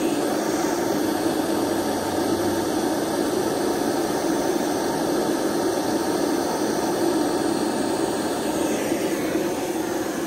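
Handheld propane torch burning with a steady hiss, its flame heating a large crimped battery cable lug for soldering.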